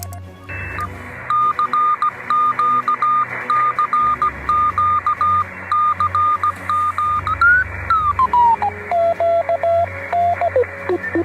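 Morse code (CW) coming through a ham radio receiver: a single tone keyed in dots and dashes over steady receiver hiss. Its pitch slides down about seven seconds in, keys on at the lower pitch, and glides down again near the end.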